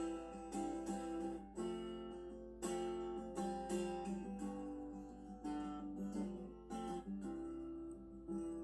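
Acoustic guitar music with regular strumming.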